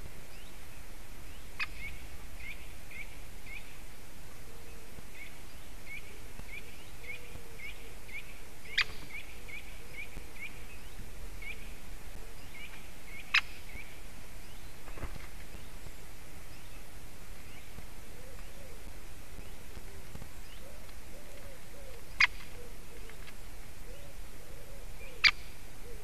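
Juvenile great spotted woodpecker giving sharp single calls, five of them spaced several seconds apart, over a steady outdoor hiss. Softer short chirps repeat about two or three a second through the first half.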